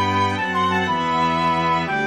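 Computer-rendered string quartet (two violins, viola and cello) playing a tune in four-part harmony, with sustained chords that change every half second or so.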